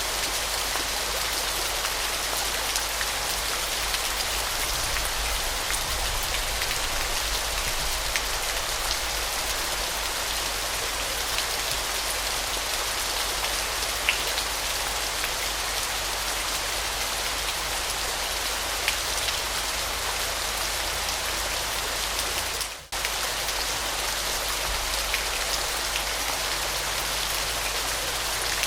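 Waterfall: a steady hiss of falling water, with small splashes and drips standing out now and then. The sound drops out briefly about 23 seconds in.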